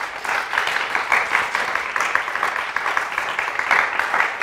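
Applause: many hands clapping at a steady level.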